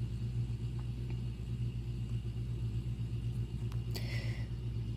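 A steady low hum or rumble, with a few faint clicks and a brief hiss about four seconds in.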